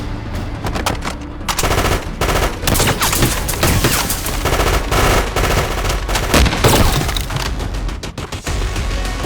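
War-film battle sound effects: a dense fusillade of rifle and machine-gun fire. The shots thicken into continuous volleys about a second and a half in.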